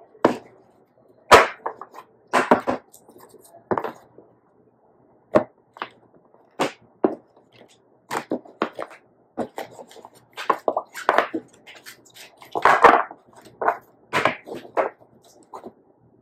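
Tarot cards being handled and cut: an irregular series of short, sharp card slaps and snaps, about twenty in all, some louder than others.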